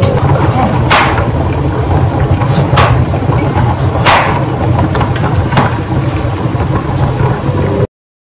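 A steady low hum with a few sharp metallic clinks, the loudest about four seconds in, as a steel mixing bowl is handled and lifted with a tea towel. The sound cuts off abruptly near the end.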